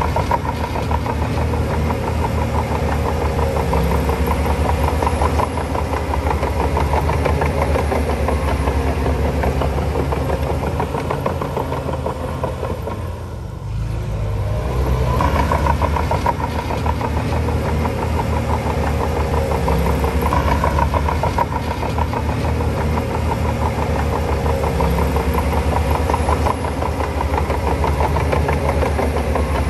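Heavy diesel engine of earthmoving machinery running steadily with a deep throb. It eases off briefly about halfway through, then picks up again.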